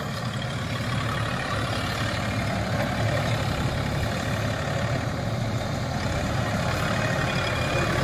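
Sanman 6000 tractor's engine running steadily.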